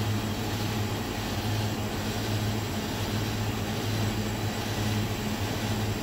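Steady low mechanical hum with an even hiss over it, unchanging throughout.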